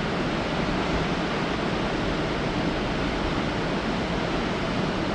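Large waterfall rushing steadily: an even wash of falling water with a deep rumble underneath.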